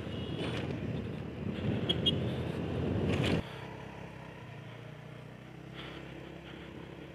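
Honda Beat Street scooter running along the road, its engine and road noise heard from the rider's seat. About three and a half seconds in, the sound drops suddenly to a quieter steady hum.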